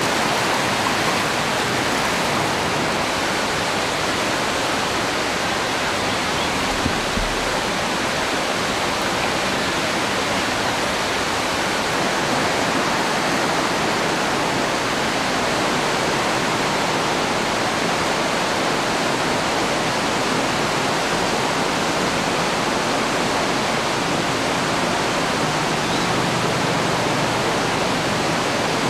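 Steady rushing of a swollen, silt-laden river in flood, a loud unbroken noise of fast water.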